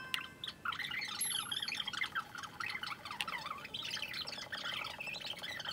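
Polystyrene foam squeaking as small foam pieces are pressed and rubbed between the fingers: a rapid, uneven run of short, high squeaks.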